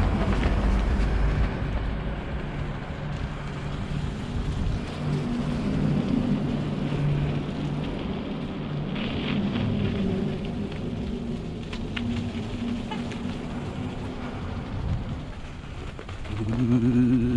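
Bicycle tyres rolling over snow with wind rumbling on the microphone, under a low steady hum.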